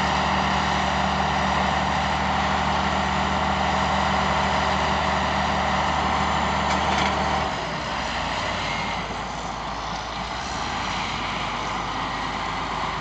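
Two crawler dozers, an Allis-Chalmers HD11 and a Caterpillar D6, running their diesel engines while pushing dirt and brush. The engine note is steady, then changes and gets quieter about seven and a half seconds in.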